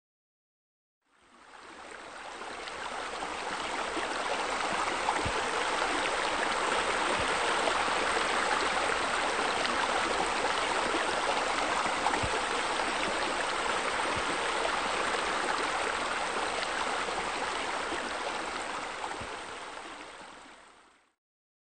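Steady rushing of flowing water, like a stream, fading in about a second in and fading out near the end.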